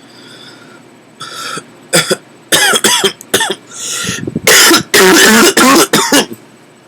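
A person's hiccups: a run of about a dozen loud voiced hiccups, short and sharp at first, then longer ones from about four and a half seconds in, with quick breaths between them.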